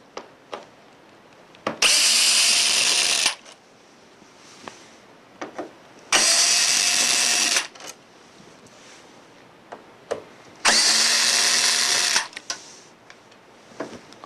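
Power drill-driver backing out screws, running in three bursts of about a second and a half each with a steady whine, with small clicks of handling between them.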